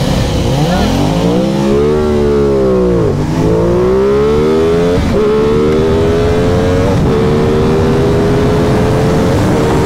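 Aprilia Tuono 660's parallel-twin engine at full throttle from a standing start. The pitch climbs, then drops back at each upshift, about four times, with each gear pulling longer.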